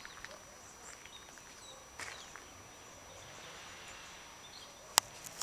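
Quiet outdoor ambience by a railway halt, with faint bird chirps. A single sharp click about five seconds in is the loudest sound.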